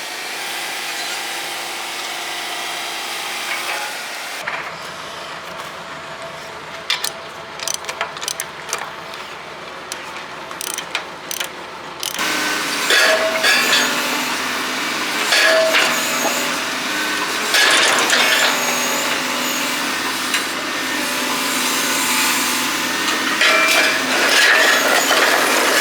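John Deere 225D LC hydraulic excavator working a rake attachment against concrete. A steady running sound first, then a run of sharp knocks and clanks, then louder rough scraping and grinding with short recurring tones. The sound changes abruptly twice.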